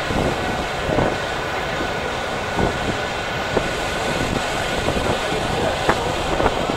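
Steady outdoor city din with irregular sharp clacks and voices of people in the background.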